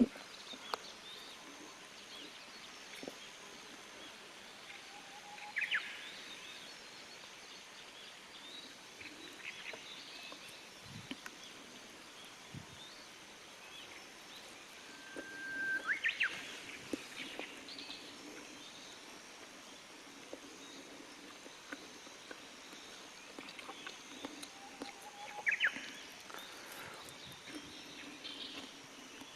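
Japanese bush warbler (uguisu) singing its 'hoo-hokekyo' song three times, about ten seconds apart: each time a held whistle, then a quick rising and falling flourish. The loudest and longest song comes about halfway through.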